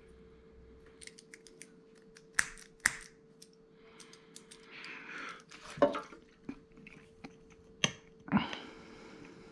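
Small metal parts of an old Ronson lighter being handled: a string of sharp clicks and taps, with two brief scraping sounds, over a faint steady hum.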